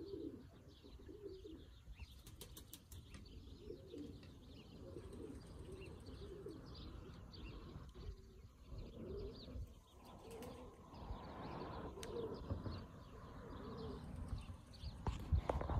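Pigeons cooing, with higher bird chirps over them, and a burst of rapid wing flapping near the end that is the loudest sound.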